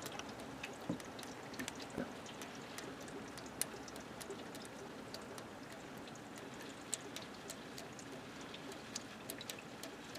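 Faint, irregular ticks and drips of water getting in at a roof exhaust vent during a hose water test, over a low hiss of water. It sounds like a leak coming through the vent.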